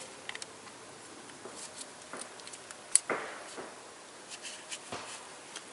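Light clicks and handling noises of a compression tester's gauge being fitted onto its hose in a spark plug hole, with one sharp click about three seconds in followed by a brief scrape, and a few smaller clicks later.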